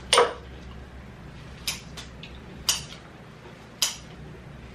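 Kitchen scissors snipping through a rack of grilled pork ribs: four sharp snips about a second apart, the first the loudest.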